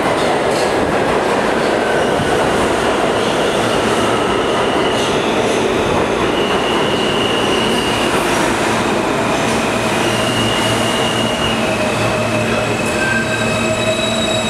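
New York City Subway R160A-1 train running into an underground station alongside the platform: a loud, steady rumble of steel wheels on the rails, with several brief high-pitched squeals from the wheels and a low, steady hum underneath.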